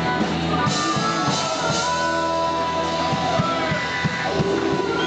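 Blues-rock band playing an instrumental stretch of a boogie, with guitar notes held over a steady drum beat.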